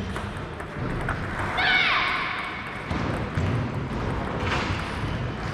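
Table tennis ball knocks and bounces against a background of chatter in a large hall, with a brief high sound falling in pitch about two seconds in.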